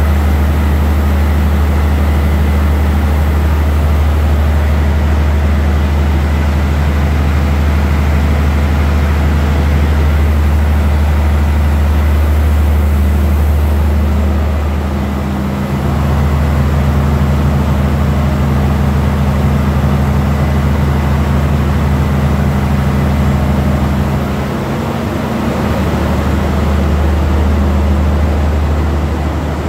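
Ship's engine-room machinery running: a loud, steady low drone that eases slightly twice.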